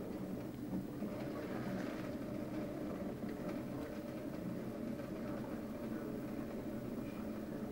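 A thin stream of tap water running steadily into a stainless steel sink, with a few faint ticks.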